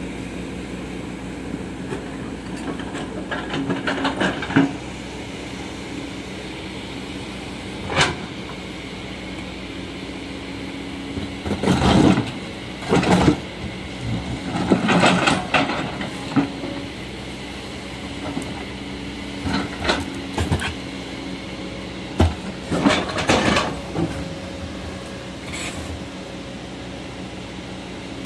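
Tracked excavator's diesel engine running steadily while its steel bucket scrapes and knocks against a large rock and loose earth, giving repeated clanks and crunches, the loudest cluster about halfway through.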